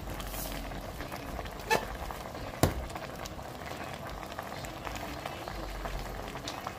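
Pot of collard greens simmering in chicken broth, a steady bubbling. Salt shaken in gives a brief hiss at the start, and two sharp clicks come about two and two and a half seconds in.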